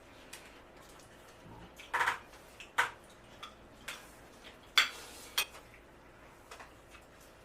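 Cutlery clinking against plates during a meal: a handful of separate sharp clicks and knocks, the loudest a little before the five-second mark.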